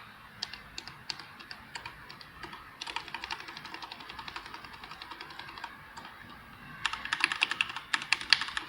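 Typing on a Leopold 750R PD mechanical keyboard with Cherry MX Red linear switches. A few separate keystrokes give way to a run of fast typing, then a short pause about six seconds in, and a louder burst of rapid typing near the end.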